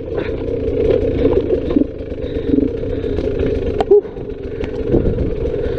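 Dirt bike engine running at a fairly steady pitch while riding a trail, with a few scattered knocks and one short throttle blip about four seconds in.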